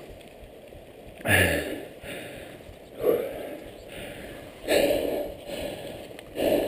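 A rider breathing heavily, out of breath from pedalling: four loud breaths, just under two seconds apart.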